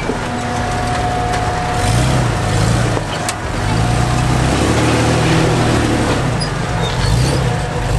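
Off-road 4x4 engine working at low speed on rock ledges, its revs rising and falling several times as the driver feathers the throttle, with a thin steady whine in the first few seconds.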